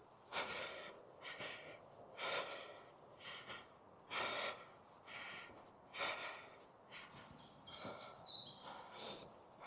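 A man breathing hard, about one heavy breath a second, out of breath from a steep uphill climb.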